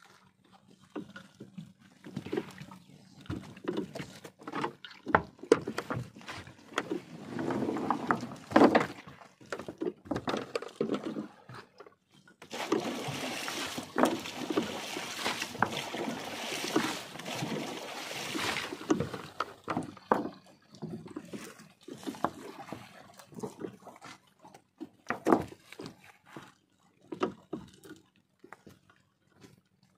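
Fishing net hauled by hand over the side of a small wooden boat: wet net and water splashing and dripping, with irregular knocks on the wooden hull and a few sharper thumps. Around the middle there is a few seconds of denser, steady splashing.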